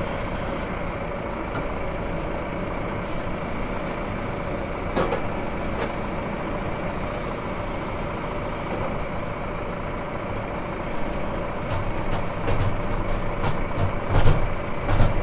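Tractor diesel engine running steadily, heard from inside the cab during front-loader work. From about two-thirds in, a run of sharp clicks and knocks, with a few heavier thumps near the end.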